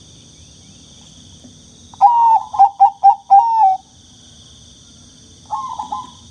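Zebra dove (perkutut) cooing: a phrase of about five quick, rhythmic notes about two seconds in, and a second phrase starting near the end, over a steady high hiss.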